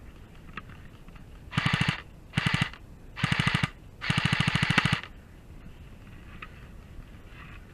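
Airsoft gun firing on full auto in four short bursts of rapid, evenly spaced shots, the last burst the longest, at nearly a second.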